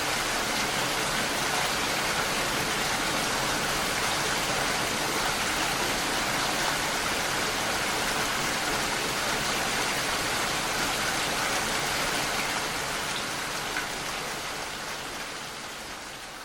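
Steady rain falling, an even hiss of drops with no distinct individual hits, fading out over the last few seconds.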